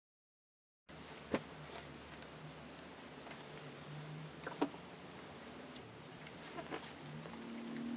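Audio starts about a second in, after total silence. Then a metal fork clinks against a ceramic plate about five times, sharp and scattered, as a piece of apple cake is cut and eaten, over faint room tone.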